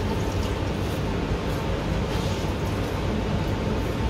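Steady background noise of a commercial kitchen: an even low rumble with hiss, unbroken throughout.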